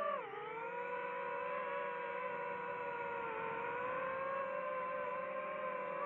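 Quadcopter drone motors whining with a steady pitched hum that dips in pitch just after the start, then holds with a slight waver.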